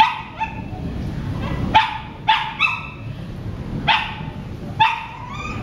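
A dog barking, about eight short barks at uneven intervals, with a low steady background rumble underneath.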